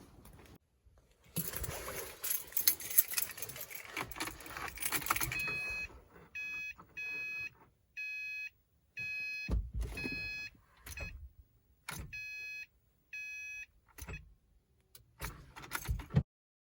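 Car keys jangling for a few seconds, then a car's electronic warning chime beeping repeatedly, about once a second, with clicks and thumps in between. The 2008 Subaru WRX turns out to have a dead battery.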